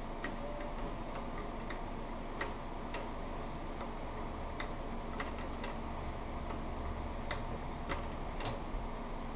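Industrial sewing machine stitching thick leather slowly, stitch by stitch: irregular sharp clicks about one or two a second as the needle punches through, over a steady low hum.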